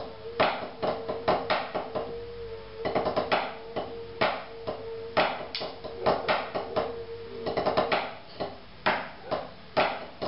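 Drumsticks playing a rudimental snare solo on a practice pad: quick sixteenth-note strokes with flams and accents, some strokes much louder than the rest. A steady ring sounds under the strokes until about eight seconds in.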